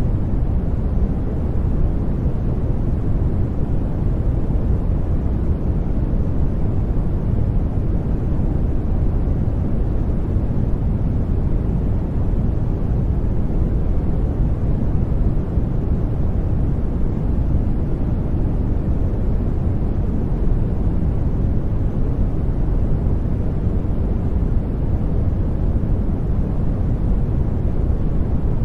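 Brown noise: a steady, deep rumbling hiss, heaviest in the bass and falling off toward the treble, with no change in level.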